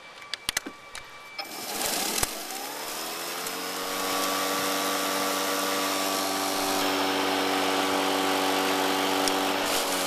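Greenworks 80V brushless cordless lawn mower starting: a few clicks, then the motor and blade spin up with a whine rising in pitch for about two seconds before settling into a steady running hum.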